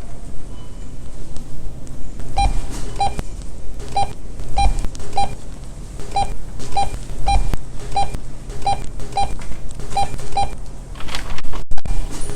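Short electronic checkout-scanner beeps repeating about twice a second in a loose rhythm, starting about two seconds in, over a low steady hum.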